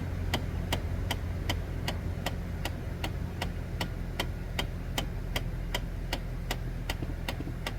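Rapid, evenly repeating clicking from under the dashboard of a 2006 Chevrolet Trailblazer, a little under three clicks a second, over a low steady hum. This dash clicking is the Trailblazer's known HVAC door actuator fault, which the owner is trying to cure by pulling fuses 36 and 39.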